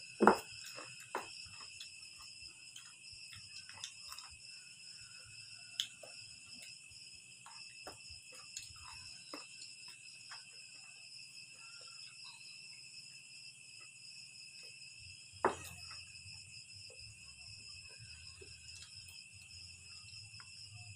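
Steady high-pitched chirring of a night insect chorus. A few sharp knocks and clicks from food and dishes being handled at the table cut through it, the loudest just after the start and another about fifteen seconds in.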